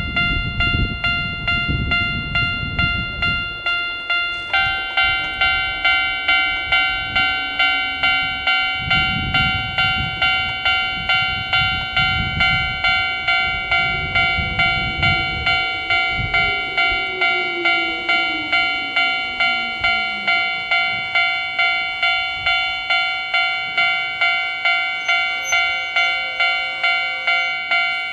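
Old standard Kita-Oji-type level-crossing warning alarm ringing in repeated strikes, at first on a single tone; about four and a half seconds in a second, slightly higher tone comes back in, and the two clash in a dissonant ring. The single-tone spells are a fault, since the alarm was not originally single-tone. Wind buffets the microphone in the first part.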